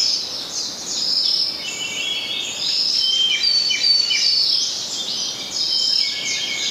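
Several birds calling at once: a dense chorus of overlapping high chirps, short whistled notes and downward-sweeping calls.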